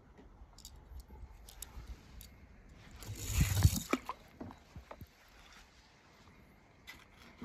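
A small toy car dropping into a plastic tub of water with one splash about three and a half seconds in, with a few faint clicks before and after it.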